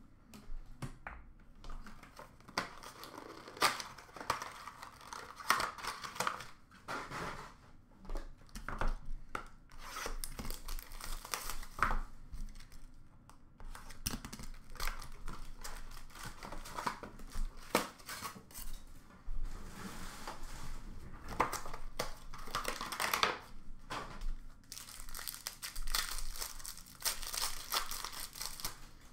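Hockey card pack wrappers being torn open and crinkled by hand: irregular crackling with many sharp snaps.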